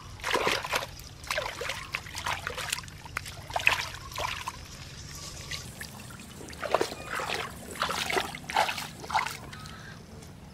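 Shallow muddy water splashing and trickling in irregular bursts as rubber boots wade and shift through it.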